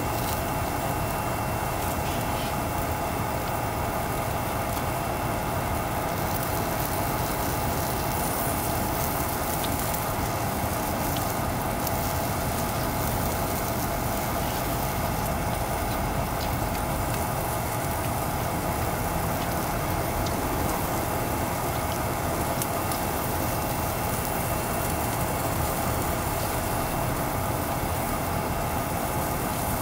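Single-burner gas stove on a screw-on gas canister running steadily under a frying pan, with sausages and fries sizzling in it.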